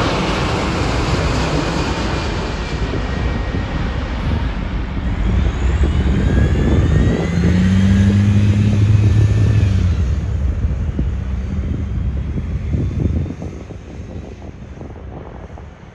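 Boeing 787 Dreamliner jet airliner passing the microphone, its engines a loud rushing noise with whining tones that fall in pitch. The noise fades quickly near the end, leaving wind on the microphone.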